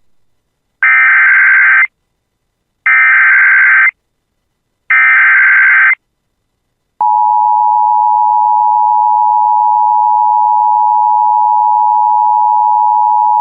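Emergency Alert System header: three one-second bursts of SAME digital data, a harsh warbling screech, about a second apart. About seven seconds in, the steady two-tone EAS attention signal begins and holds. Together they herald a severe thunderstorm warning.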